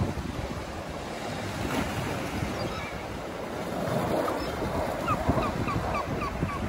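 Waves splashing and washing over a low stone jetty, with wind buffeting the microphone. Near the end, a gull calls in a quick run of short, falling notes.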